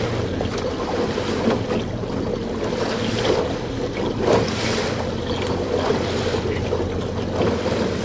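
Boat motor running steadily at slow trolling speed, a low hum under wind buffeting the microphone and the wash of sea water around the hull.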